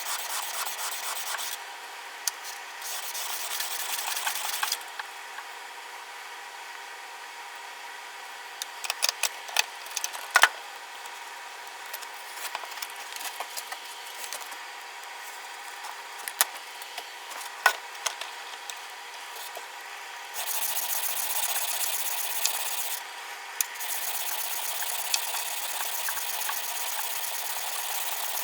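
Steel plane iron rubbed back and forth on an abrasive surface in quick strokes while it is sanded and sharpened, in several spells a few seconds long. In the middle stretch there are scattered sharp clicks and taps of metal on a hard surface.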